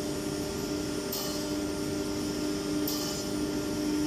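ATC CNC router's spindle running with a steady whine over the hiss of its dust-extraction suction, as it machines a sheet. Short bursts of sharper, higher hiss come about every second and a half, twice.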